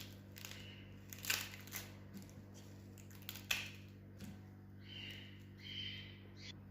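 Dry papery skin of a red onion crackling and tearing as it is peeled off by hand, with a few sharp crackles spread out and a softer rustle near the end.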